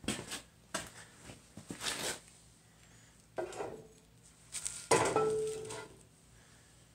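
Freshly sawn halves of aluminum tubing knocking and clinking against each other and the saw table as they are lifted apart: a handful of separate knocks, the loudest about five seconds in, followed by a short metallic ring.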